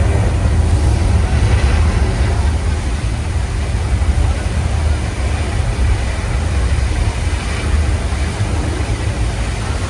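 Loud, deep, steady rumble of the Earthquake: The Big One attraction's simulated earthquake, heard from the tram, with a noisy hiss over it.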